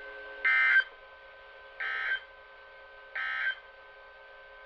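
Three short bursts of Emergency Alert System SAME digital data tones, the end-of-message signal closing a NOAA Weather Radio required weekly test, evenly spaced about a second and a half apart with the first loudest. Faint steady tones from the receiver run beneath them.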